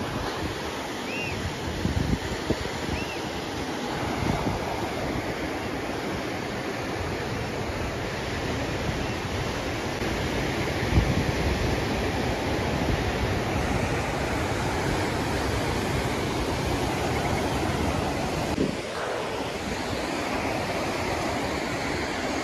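Ocean surf washing onto a beach in a steady rush, with wind buffeting the microphone in uneven low gusts.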